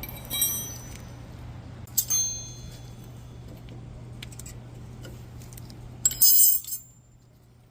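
Steel sockets and hand tools clinking together with a bright ring, in three short bursts, the last one the longest and loudest, as a socket is picked out for the brake caliper bolt. A steady low hum underneath cuts out near the end.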